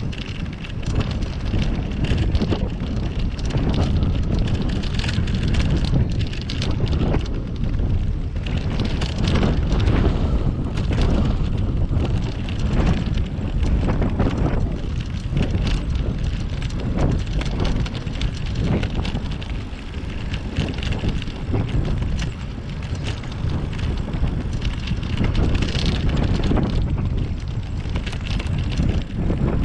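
Wind buffeting the microphone of a bicycle-mounted camera while riding, with the bicycle rattling and clicking steadily over the road surface.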